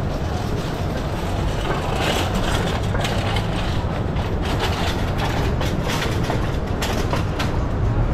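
City street noise: a steady low rumble like vehicle traffic, with scattered light clicks and taps from about two seconds in.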